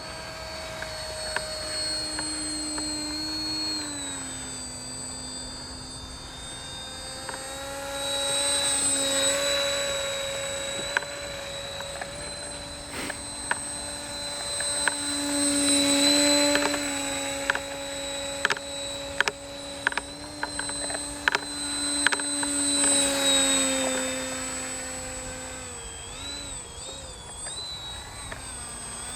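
RC model autogyro's motor and propeller running steadily, its pitch stepping down and back up a few times with throttle changes and wavering near the end, with scattered sharp clicks.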